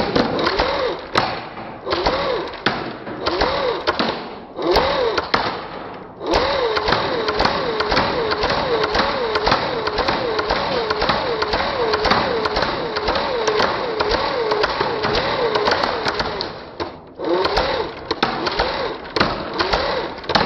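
Airsoft gun firing on full auto: rapid clicking in several short bursts, then one long burst of about ten seconds, with a wavering tone that rises and falls a couple of times a second.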